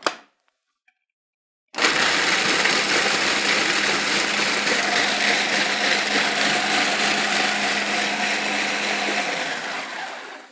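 Bosch food processor motor running at speed, grinding Oreo cookie halves into crumbs. It starts suddenly about two seconds in, runs steadily with a constant hum, and winds down near the end.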